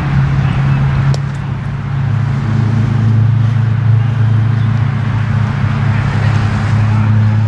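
A motor vehicle engine running close by: a steady low hum that drops a little in pitch about two seconds in.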